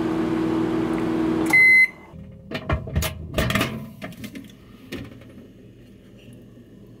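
Hamilton Beach microwave oven running with a steady low hum, then beeping once about a second and a half in as the hum cuts off. A few knocks and clicks follow.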